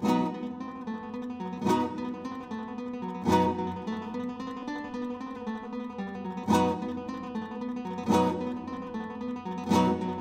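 Background music: strummed acoustic guitar cutting in abruptly, with accented strums about every one and a half seconds.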